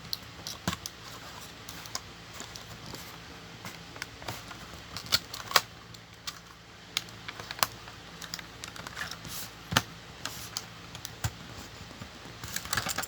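Plastic blister pack of a die-cast toy car being torn open from its cardboard card by hand: scattered crackles and clicks of stiff plastic, with a few sharper snaps.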